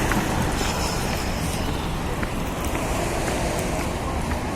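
Steady street traffic noise with low rumbling wind on the microphone.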